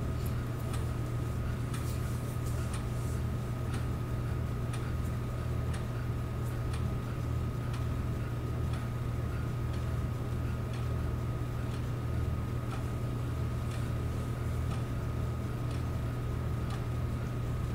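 8mm film projector running: a steady mechanical hum with fast ticking and scattered clicks.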